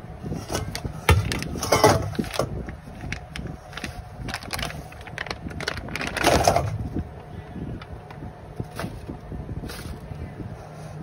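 Plastic bag of chicken wings crinkling as it is emptied, with wings dropping and knocking into a stainless steel bowl. The loudest rustling and knocks come at about two seconds and again at about six seconds.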